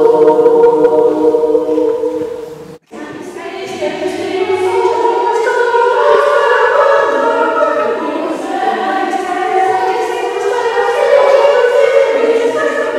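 Unaccompanied women's voices singing in harmony. A held chord fades and breaks off sharply about three seconds in, then the group sings on with voices moving in several parts.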